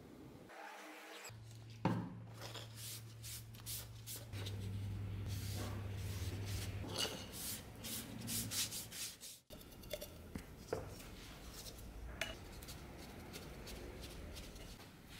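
A cloth rubbing over a wooden knife sheath in quick back-and-forth wiping strokes, over a low steady hum. After a break about nine seconds in, the rubbing is quieter, with a few light taps.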